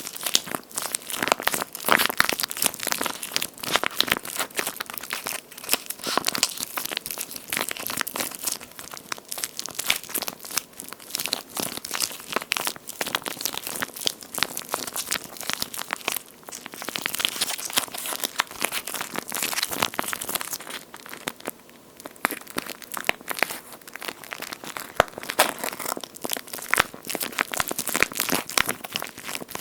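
Hands squeezing and kneading a water-filled squishy toy shaped like charcoal-grilled toast, giving a continuous dense crackling, squishing sound with a couple of short lulls.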